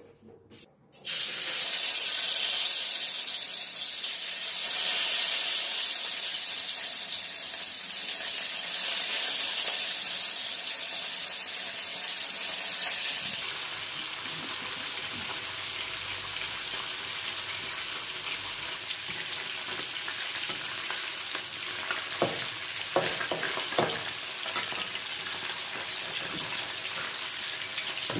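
Whole fish frying in hot oil in an aluminium wok: a loud, even sizzle starts about a second in as the fish go into the oil, and partway through it drops to a steadier, quieter sizzle. Near the end come a few sharp knocks of the metal spatula against the pan as the fish are turned.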